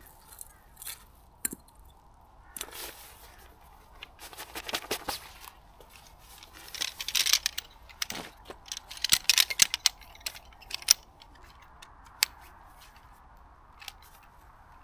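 Nylon stuff sack rustling and crinkling as a folding camp chair and its poles are pulled out and handled, with sharp clicks of the metal poles. The rustling comes in bursts, busiest and loudest in the middle.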